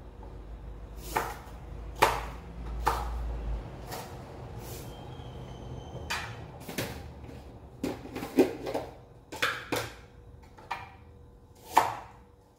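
Kitchen knife chopping on a cutting board: irregular sharp knocks as the blade strikes the board, a dozen or so in all. A faint low hum underneath stops about three seconds in.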